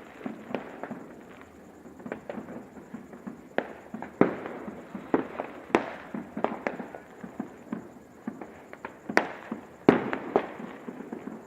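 Fireworks and firecrackers going off: sharp bangs and pops at irregular intervals, some with a short echoing tail, the loudest near the end.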